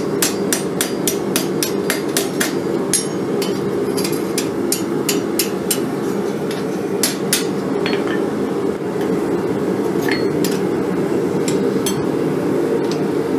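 Hand hammer striking hot mild steel on an anvil: a quick run of blows about three a second for roughly five seconds, then scattered single strikes. A steady low rush from the running gas forge lies underneath.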